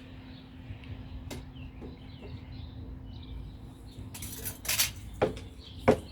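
A few sharp clinks and knocks from tools and materials being handled, with a brief scraping rasp about four seconds in, over a faint steady hum.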